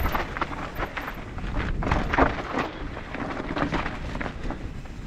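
Mountain bike rolling fast down a dirt singletrack: tyres rumbling over dirt and small stones, with frequent knocks and rattles from the bike and wind rumble on the helmet camera's microphone.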